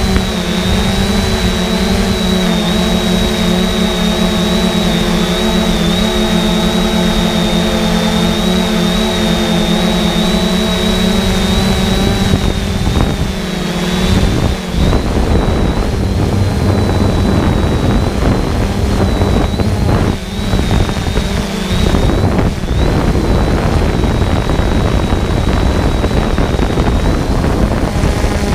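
A quadcopter drone's electric motors and propellers whir steadily and loudly, with a thin high whine. About halfway through, the even whir breaks up into a rougher sound with gusts of wind noise.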